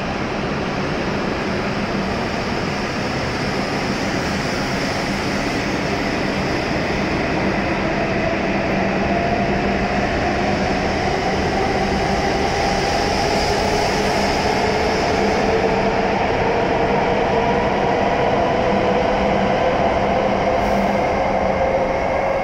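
W7 series Shinkansen train pulling out of the station: its traction motors whine in two tones that rise steadily in pitch as it accelerates, over the rumble of the moving cars.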